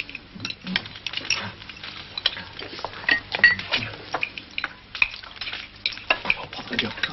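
Forks and spoons clinking and scraping on plates as several people eat, a scatter of small irregular clicks.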